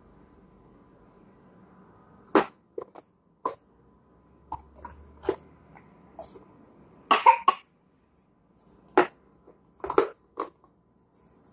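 Empty plastic Play-Doh tubs clacking against each other and the plastic high-chair tray as they are stacked, nested and pulled apart: a string of short, sharp knocks at irregular intervals, a quick cluster of them just past the middle.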